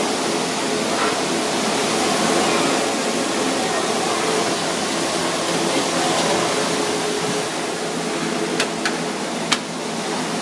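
Steady rushing hiss of an aluminium steamer going full on a gas range. Near the end come a few sharp clinks of metal kitchenware.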